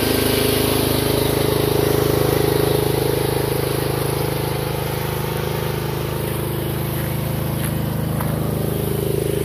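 AGROTK QH12 mini excavator's small engine running steadily at a constant speed, with no revving.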